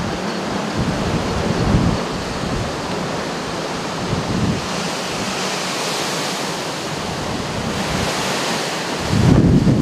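Wind buffeting the microphone: a steady rushing noise with gusts, and a heavier low rumble from a strong gust near the end.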